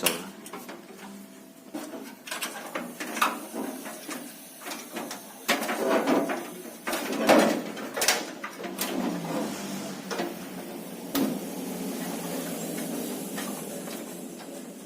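Irregular knocks, clicks and clatter of hardware and parts being handled and moved about during assembly, loudest around the middle, with a steadier scraping hiss from about eleven seconds in.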